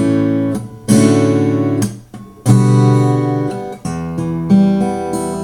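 Acoustic guitar strumming chords, about four slow strums each left to ring, with the chord changing between them.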